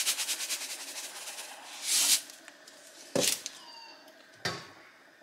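Salt being shaken from a container into a pot of water: a fast, even rattling that fades out within the first second. Then a short hiss, followed by two light knocks, the first with a brief metallic ring.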